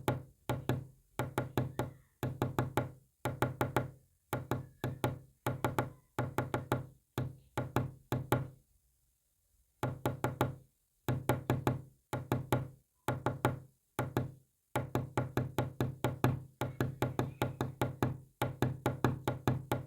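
Quick knocks tapped out in groups of several strokes, about six a second, with short gaps between groups and a longer pause about nine seconds in: a message knocked out in code.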